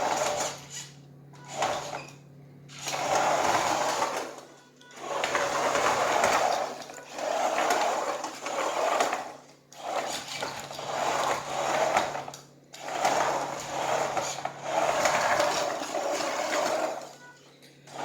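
Small DC motors of a 3D-printed RC car whirring in repeated bursts of a second or two with short pauses between, its plastic wheels running on a hard floor.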